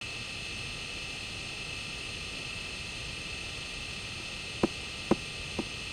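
Steady hiss and hum of recording noise. Near the end, three short clicks about half a second apart.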